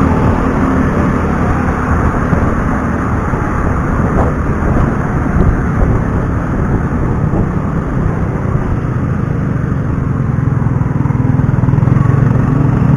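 A motorcycle riding along a road in traffic: steady engine and road noise with a heavy low rumble.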